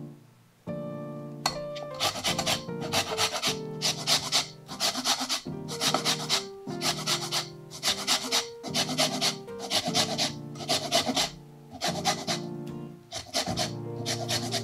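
Lemon rind being zested on a stainless-steel rasp grater: a regular run of scraping strokes, about two a second, starting about a second and a half in. Soft background music plays underneath.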